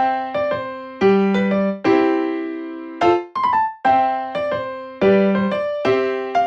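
Background music: a gentle piano tune, single notes and chords struck in a steady rhythm.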